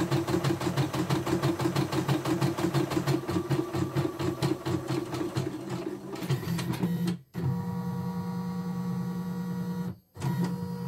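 CNY E960 computerized embroidery machine stitching, its needle going in a fast, even rhythm. About six seconds in the stitching stops and gives way to a steady electric hum from the machine, broken twice by brief silences.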